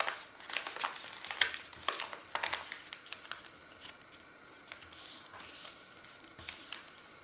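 A sheet of paper crackling and rustling as it is folded and creased by hand, with a run of sharp crackles over the first three seconds, then softer handling.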